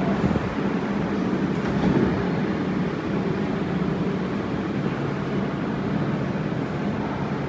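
Montreal Metro rubber-tyred AZUR train running along the station platform: a steady rumble and whir of the cars passing, with a low hum coming in about five seconds in.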